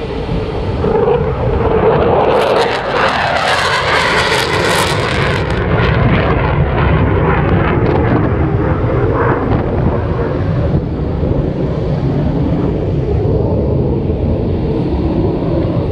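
F-16 fighter jet taking off on full afterburner. The jet noise is loudest about two to five seconds in, with a crackling high hiss over a deep rumble, then settles into a steady low rumble as the jet climbs away.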